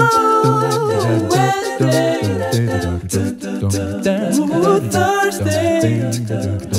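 Background song with layered singing voices carrying a melody over a low bass line.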